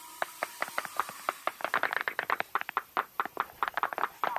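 Airsoft gunfire: a rapid, irregular string of sharp pops and clicks, several a second, some bunched together.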